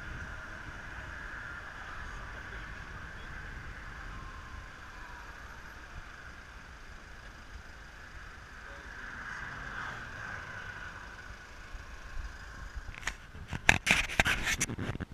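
Steady road and wind noise of a car moving in slow expressway traffic, picked up by a camera mounted outside the car. About two seconds before the end, a loud burst of scraping and knocking from the camera being handled.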